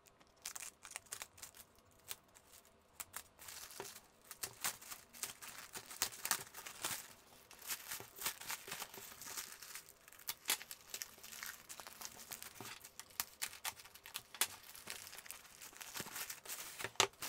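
Thin black plastic mailer bag crinkling and crackling as hands tear it open and pull it off a long cardboard box, in irregular rustles and rips.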